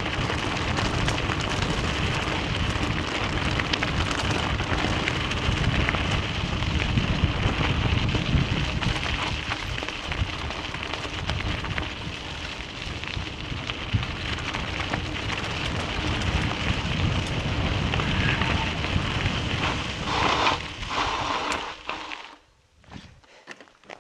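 Tyres rolling and crunching over a loose gravel road, a dense crackle with a low rumble underneath, which dies away about two seconds before the end as the ride stops.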